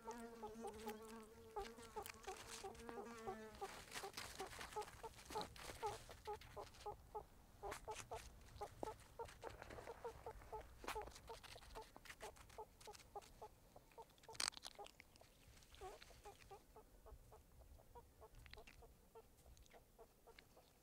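Meerkats giving soft, rapid clucking calls, several short notes a second, with a steady low hum under the first few seconds and one sharp click about halfway through.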